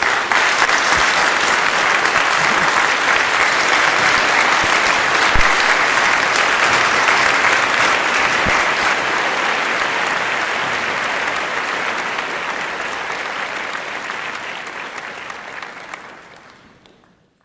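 Audience applauding, a dense steady clapping that gradually thins and fades out over the last few seconds.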